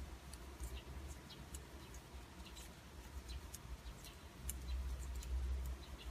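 Thin metal double-pointed knitting needles clicking lightly against each other as stitches are worked in the round: faint, irregular ticks a few times a second over a low rumble that swells about five seconds in.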